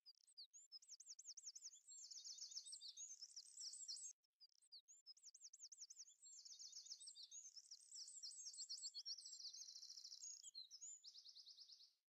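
Faint, high-pitched songbird song: fast trills and rapid runs of repeated looping notes, in two long phrases with a short break about four seconds in.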